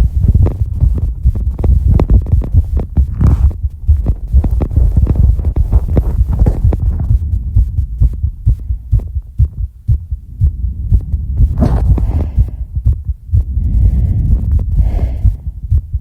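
A person's heartbeat heard close up after exercise, a rapid run of low thumping beats over a deep rumble. A few breaths break through, about 3 seconds in, near 12 seconds and toward the end.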